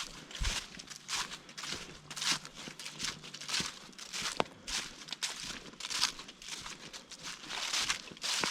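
Footsteps of a hiker walking along a trail covered in dry autumn leaves, each step a short crunch and rustle, at a steady pace of about two steps a second.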